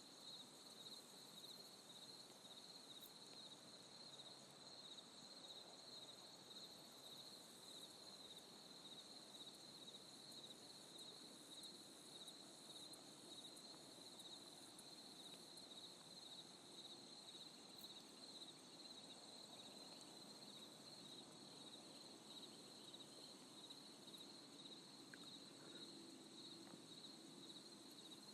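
Faint, steady chirping of crickets, a continuous high-pitched trill that does not let up.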